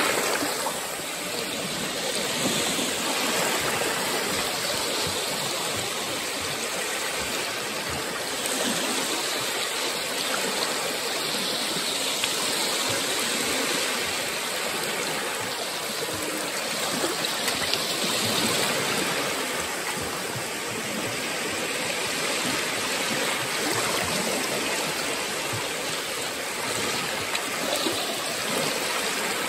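Small Baltic Sea waves lapping and washing over shallow sand at the water's edge: a continuous wash of water that swells gently every few seconds.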